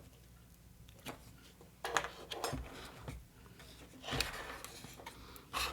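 Scattered light clicks and taps of small miniature-kit parts being handled and fitted together.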